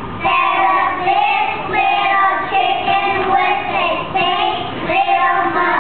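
A group of kindergarten children singing a nursery rhyme together, in drawn-out sing-song phrases with short breaks between them.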